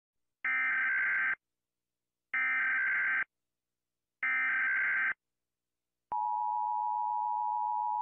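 US Emergency Alert System alarm: three short bursts of SAME header data tones, each about a second long with a second's gap between them, then the steady two-tone attention signal starting about six seconds in.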